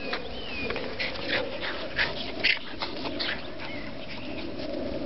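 Small terriers at play, with a run of short, high dog whimpers from about a second in until past three seconds.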